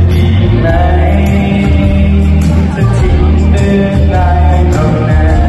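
A man singing a pop song into a handheld microphone over a backing track with a strong bass line and a steady beat.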